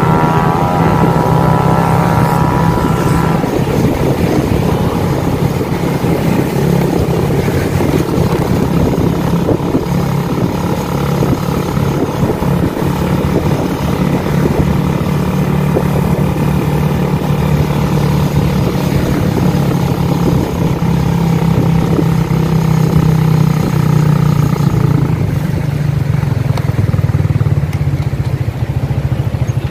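Motorcycle engine running steadily on the move while towing another, broken-down motorcycle on a rope. The engine note drops about four seconds before the end.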